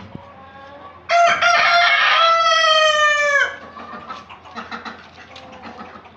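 A rooster crowing once, a single long call of about two and a half seconds that drops in pitch at the end. Fainter poultry calls come before and after it.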